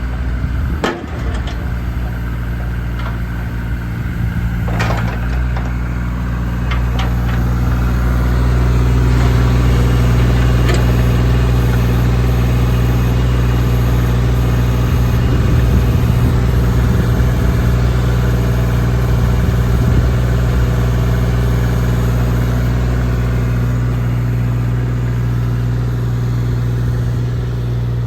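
JCB 8018 mini excavator's diesel engine running steadily, growing a little louder a few seconds in. A few sharp knocks or clicks come in the first several seconds.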